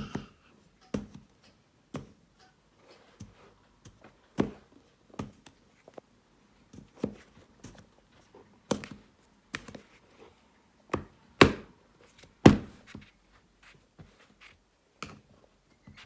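Irregular sharp taps and knocks, about one a second, of toddlers banging kinetic-sand moulds and tools against a sand tray; the two loudest knocks come about three quarters of the way through.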